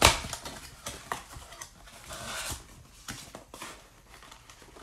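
Cardboard trading-card blaster box being handled and opened by hand: a sharp knock right at the start, then scattered clicks and rustling.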